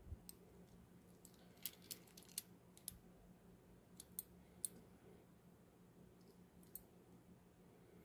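Hiatt-Peerless handcuff's bow ratcheting through the lock, its teeth clicking past the single spring-loaded pawl. A few faint, sharp, irregular clicks, bunched around two seconds in and again around four and a half seconds, with one more near the end.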